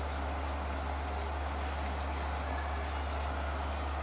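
A pot of thick liver curry simmering, its oily gravy bubbling with a steady fine crackle, over a steady low hum.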